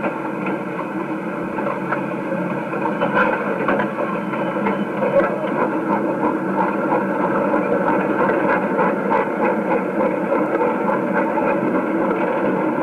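Steam train pulling away, a continuous noisy rumble with many small irregular clanks, on a thin, lo-fi recording.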